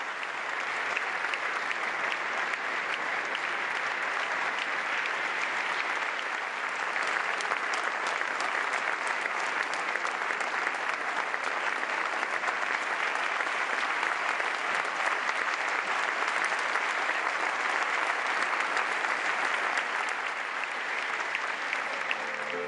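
An audience applauding, with many hands clapping steadily throughout.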